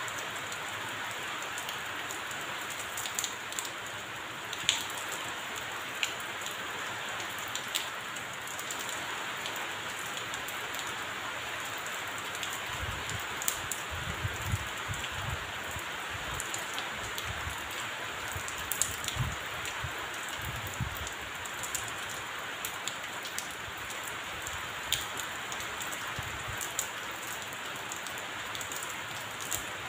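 Steady rain falling on a paved terrace and potted plants, with scattered sharper drops ticking. A few soft low thumps come around the middle.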